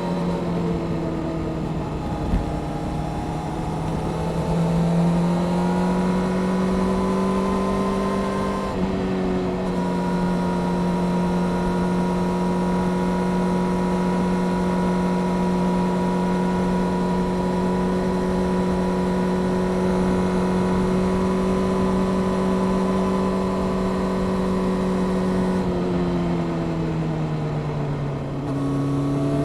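Honda CBR600F Sport's inline-four engine through a Delkevic aftermarket exhaust, under steady wind noise. The note falls and then climbs, drops sharply at a gear change about nine seconds in, and holds steady at cruising revs for a long stretch. Near the end it eases off and rises again.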